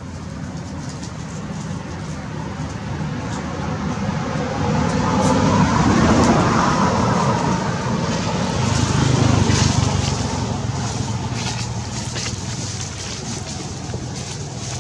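A motor vehicle passing by, its engine growing louder over several seconds and then fading away.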